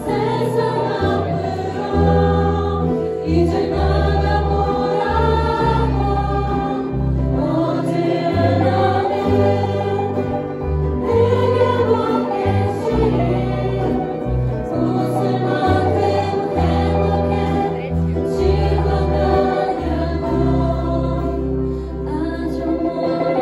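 A mixed choir sings a slow Korean pop ballad into microphones, with a small band of keyboard and guitars underneath and a deep bass line holding long low notes.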